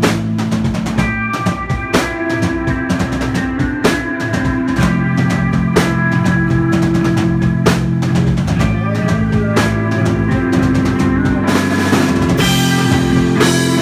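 Live band playing: a drum kit beating steadily, bass drum and snare hits, under held electric guitar and bass chords, with a cymbal wash swelling near the end.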